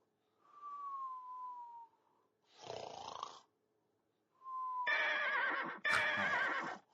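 Snoring: a rasping snore on the in-breath followed by a thin whistle falling in pitch on the out-breath, twice over. Near the end comes a longer, louder snore that wavers in pitch, with a sharp click in the middle of it.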